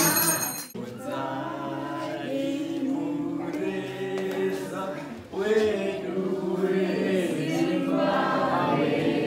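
A group of voices singing a Hindu devotional chant in unison, without instruments, in long held notes. The chant comes in two phrases with a brief break about five seconds in. A louder stretch of music cuts off within the first second.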